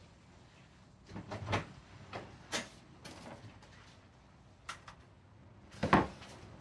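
A few irregular knocks and clunks, the loudest near the end.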